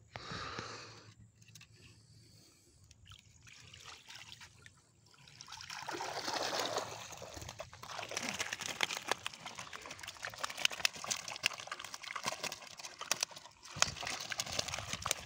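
Water pouring and trickling off a fishing keepnet full of fish as it is lifted out of the water, starting about five seconds in, followed by many short splashes and rustles from the wet net and the catch inside it.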